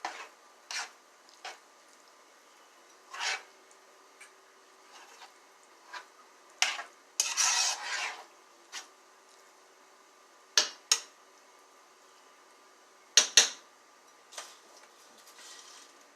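A utensil clinking and knocking against a cooking pot in scattered strokes, with a longer scrape about seven seconds in and two sharp clinks near the end.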